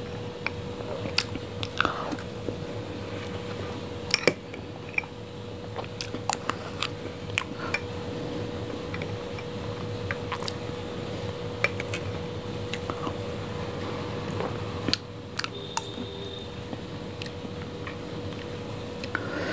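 Metal spoon clicking and scraping against a glass dessert bowl as dessert is scooped out, in scattered sharp ticks over a steady faint hum.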